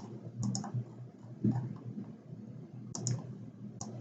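Computer mouse clicking: about seven short, sharp clicks, some in quick pairs like double-clicks, over a faint low hum.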